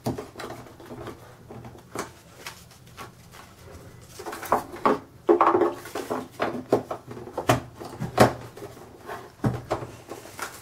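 AA batteries being fitted by hand into the plastic battery compartment of a Casio SE-G1 cash register: irregular plastic clicks, taps and rattles, busier and louder in the second half.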